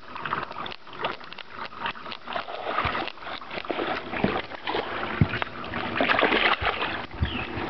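Water splashing with scattered knocks and clicks as a hooked largemouth bass is fought and landed.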